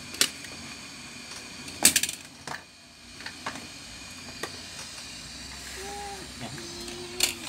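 Sharp clicks and taps of a laptop's plastic screen bezel being pressed into place by hand, a handful of separate snaps with the loudest about two seconds in and another near the end.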